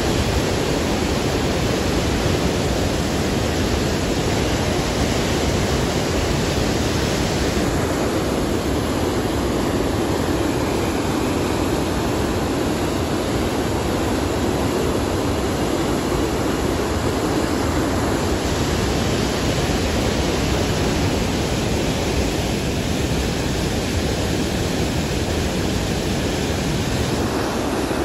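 Steady rushing noise of the Niagara River's rapids and falls, a constant wash of water sound with no breaks or bangs.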